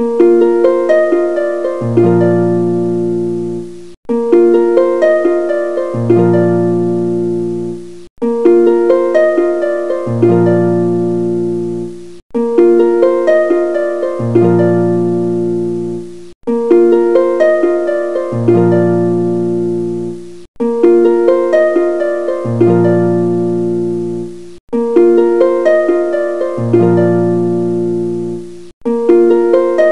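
Background music: a gentle plucked-string melody built on one short phrase that loops about every four seconds, with a brief break between repeats.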